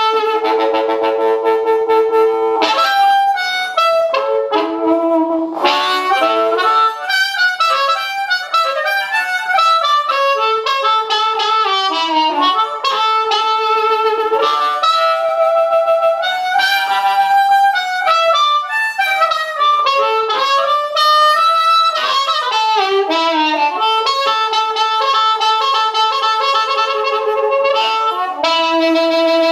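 Blues harp: a Seydel 1847 Noble harmonica in D played through a Shure 520 microphone into a c. 1960 Danelectro Corporal 132 amplifier. It is a continuous run of chords and single notes, with bent notes sliding down and back up.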